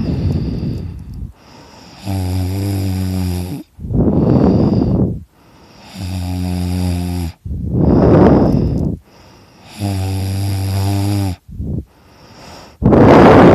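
A man snoring loudly in his sleep, about one breath every four seconds. Each breath is a low, buzzing snore about a second and a half long, followed straight away by a rushing, breathy breath.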